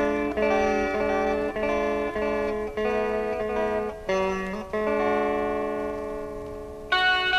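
Instrumental intro of a 1960s rock record: sustained guitar chords change about once a second, one long chord fades, and the fuller band comes in louder near the end.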